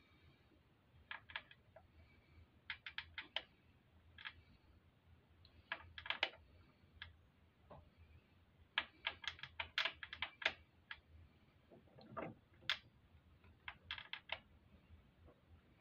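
Small metal clicks and taps in irregular clusters: a magnetic socket on an extension clinking against a tappet and the tappet block in a motorcycle V-twin's cam area as a tappet is lifted out. There is a duller knock about twelve seconds in.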